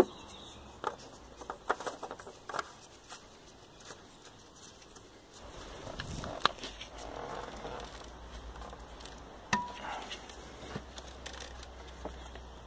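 Gloved hands working in a car's engine bay: a sharp knock right at the start, then scattered small clicks, taps and rustling as parts are handled, with a low rumble from about five seconds in.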